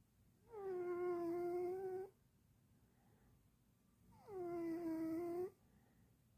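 A cat snoring with a whistling tone on its breaths: two long, pitched snores about four seconds apart. Each starts a little higher and settles to a steady pitch for about a second and a half.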